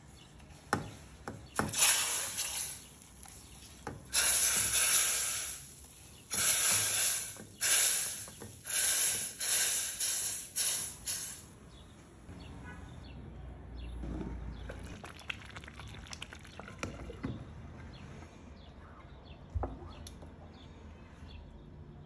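Toasted semolina going into a pot of boiling sugar syrup, hissing and spattering in a run of loud bursts about a second apart. About halfway through the hissing stops, leaving quieter bubbling and stirring of the mixture.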